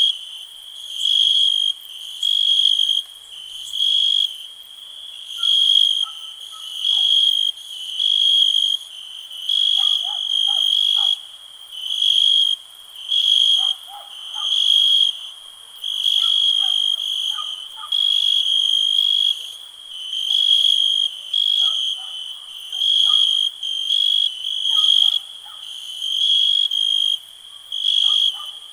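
A cricket chirping in a high, shrill trill, repeated in regular bursts about once a second. Fainter, lower chirps come and go behind it.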